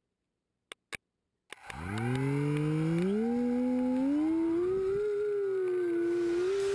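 Electric motor of a battery-powered FPV model aircraft spinning up for takeoff, its whine rising in steps and then holding near full power. Two short clicks come just before it starts.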